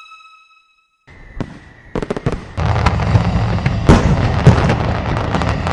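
A held musical note fades out, then after a brief silence fireworks go off: a few separate cracks and pops, then from about two and a half seconds in, dense continuous crackling punctuated by loud bangs.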